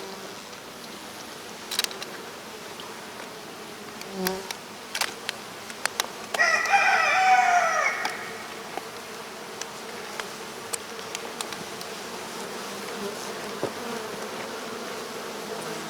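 Swarming honeybees buzzing steadily, a few sharp clicks, and a rooster crowing once, loudly, about six seconds in.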